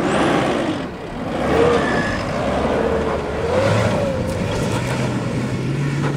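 Isuzu D-Max V-Cross pickup's diesel engine revving under load on a steep dirt climb, its note rising and falling and then holding higher in the second half, over the hiss of tyres churning and spraying loose soil.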